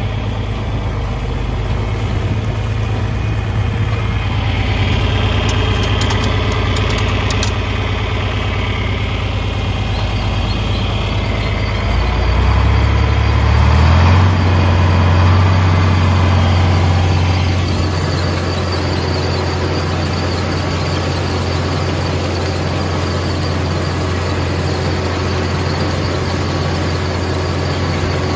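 Vintage John Deere tractor engine running steadily; about twelve seconds in its pitch steps up and it keeps running at the faster speed.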